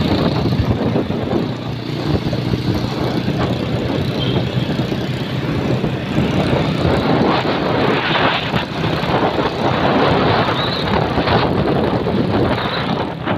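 Small motorcycle on the move: its engine runs steadily under load, buried in rushing wind and road noise on the handlebar-mounted microphone.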